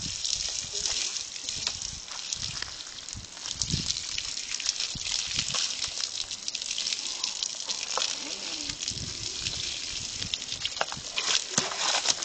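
Garden hose spraying water onto a horse's coat during a wash-down: a continuous hiss of spray with splashing.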